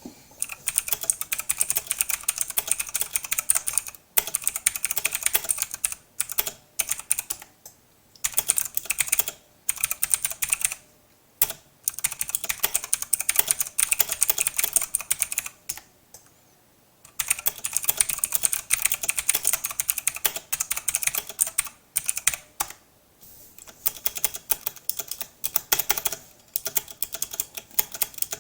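Typing on a PICTEK PC330A mechanical keyboard with generic clicky blue switches and doubleshot ABS keycaps: runs of rapid, sharp clicks broken by short pauses every few seconds, the longest a little past halfway.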